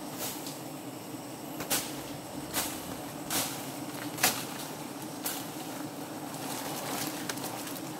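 Steady low buzzing of a swarm of wild honeybees around their open comb, broken by several sharp snaps, about one a second, in the first five seconds.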